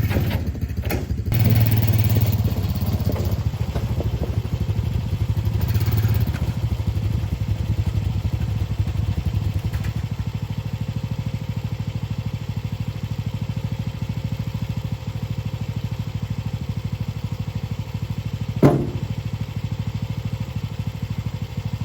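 A small gasoline engine running steadily with an even beat, louder for a few seconds near the start, and one sharp clunk near the end.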